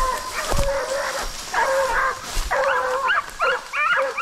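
Hunting dog baying: two drawn-out bays, then a quick run of short barks in the second half. This is the bay of a dog holding a wild boar at bay.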